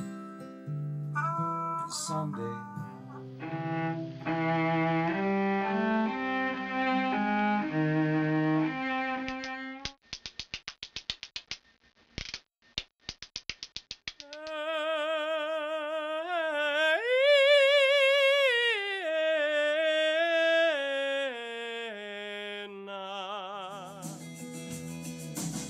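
Studio music clips in turn: sustained instrumental notes for about ten seconds, then a few seconds of sharp hand-percussion taps, then a singer holding notes with a wide vibrato.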